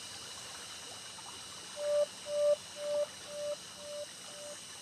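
About six short notes at one pitch, evenly spaced about half a second apart and growing fainter, starting a couple of seconds in, over a faint steady hiss.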